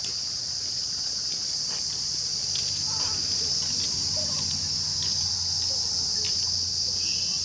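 Steady high-pitched chorus of insects such as crickets, unbroken throughout. A low hum joins beneath it about two seconds in and fades near the end.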